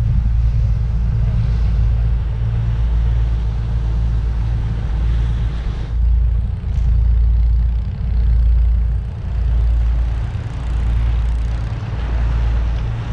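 Deep, steady rumble of a small car ferry under way, its engine and wind buffeting the microphone on the open deck, swelling and dipping every second or so. The sound changes abruptly about six seconds in.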